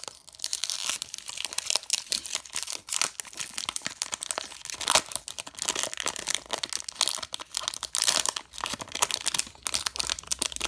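Foil-wrapped baseball card pack being torn open and its wrapper crinkled by hand, an irregular run of crackles and tearing.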